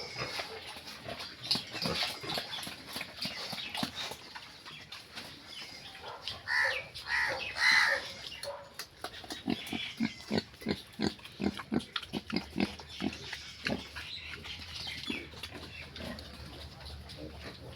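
Pigs grunting in short repeated bursts, with a few short squeals about seven seconds in.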